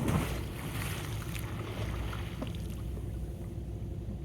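Steady low engine rumble with a constant hum, under a haze of wind noise; a brief rush of noise comes right at the start.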